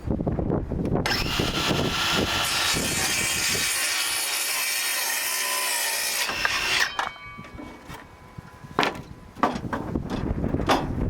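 Ferrex 18V cordless circular saw cutting through wood for about six seconds, a dense high-pitched cutting noise that stops suddenly, followed by a few knocks. Wind buffets the microphone.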